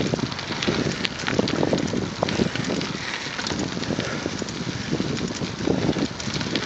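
Wind buffeting the microphone of a bicycle-mounted camera while riding, with the tyres rolling over a packed dirt path and a steady run of small ticks and rattles.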